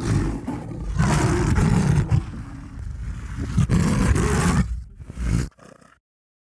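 Big-cat roar sound effect: one long roar that swells loud several times, then cuts off abruptly about six seconds in.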